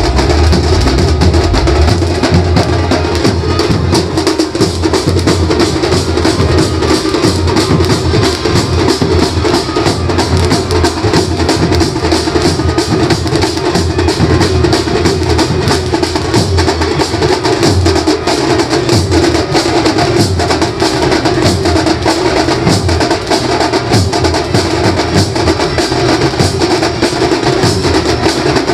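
Maharashtrian banjo band playing loud festival music: dense, driving drumming under a continuous melodic line, without a break.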